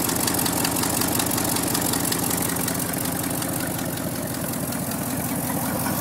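Ford Thunderbird engine idling steadily under the open hood, with a rapid, even ticking over the running that the owner calls a terrible noise.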